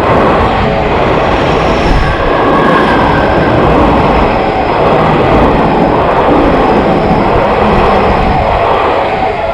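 A Tokyu Oimachi Line train passing close by at a level crossing: a loud, steady rush of wheels on rails and running noise.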